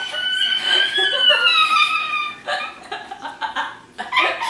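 A long high-pitched squeal that slowly falls in pitch, then two women laughing in short bursts.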